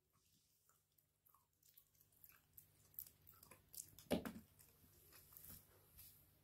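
Shiba Inu gnawing a stick-shaped dog chew: a few faint, scattered crunches and clicks, the loudest a little past the middle.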